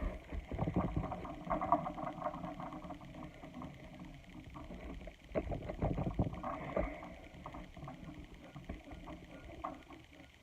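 Slime being squished and stretched by hand, giving irregular sticky clicks and crackling pops in two busier spells.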